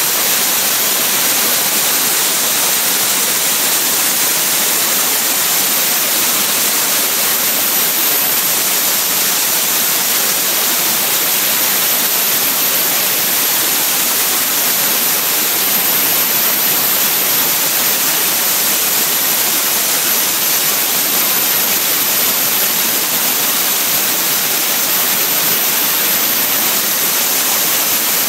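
Dry ice blaster nozzle blasting compressed air and dry ice pellets, a loud, steady, unbroken hiss with a thin high whistle over it, as it strips dried ink off a printer part.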